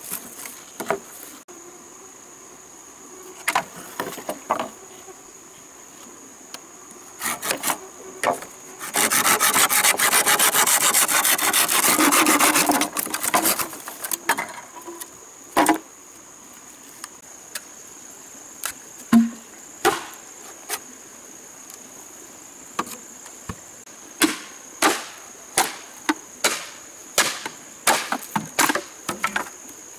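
Hand saw cutting through green bamboo for about four seconds, a steady rasping stroke, followed by scattered single knocks on wood and then a run of sharp strikes about two a second near the end. A steady high insect drone runs behind it all.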